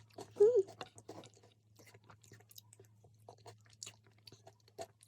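Close-up chewing: soft wet mouth clicks and small crunches of someone eating. A short wavering hum of voice sounds about half a second in.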